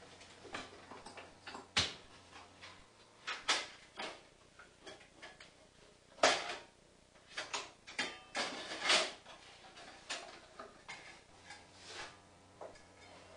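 Scattered knocks, clicks and rattles as a homemade wooden bandsaw's wheel covers are swung open and its blade is taken off the wheels. The loudest knock comes about six seconds in, with a close run of clatter a couple of seconds later.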